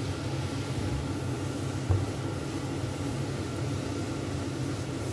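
Water and tomato sauce simmering in a frying pan, stirred with a silicone spatula, over a steady low hum. One light knock about two seconds in.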